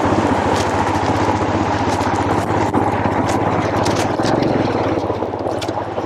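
Royal Enfield motorcycle engine running steadily under load as the bike fords a shallow, rocky river, with water splashing constantly off the wheel.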